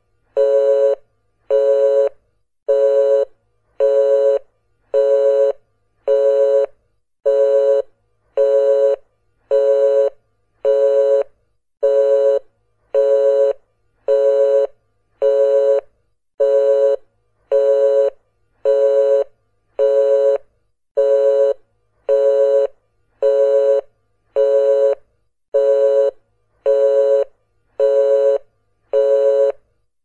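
Telephone busy signal: a pitched tone beeping on and off in an even cadence, about one half-second beep each second, which means the line called is engaged.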